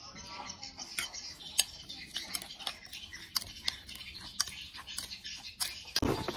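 Metal spoon stirring a coarse ground mixture in a bowl, clicking and scraping against the bowl irregularly, a few times a second. A louder, deeper thump comes near the end.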